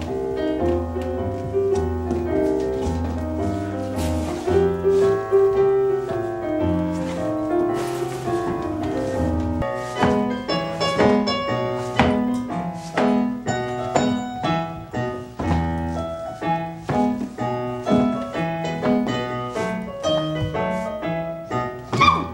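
Piano music: a melody over low bass notes, held notes at first, then quicker, crisply struck notes from about ten seconds in.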